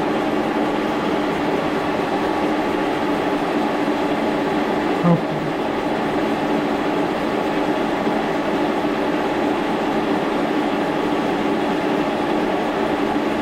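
Steady machinery hum with a few held tones, unchanging throughout, with one brief squeak about five seconds in.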